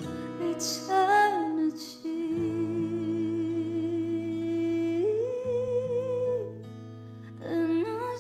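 Music: a voice singing or humming long, wavering held notes, a lower note for about three seconds then a higher one, over a steady backing accompaniment; a new phrase starts near the end.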